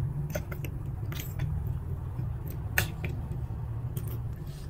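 Chewing and wet mouth sounds of a person eating noodles in meatball soup, with a few sharp clicks scattered through.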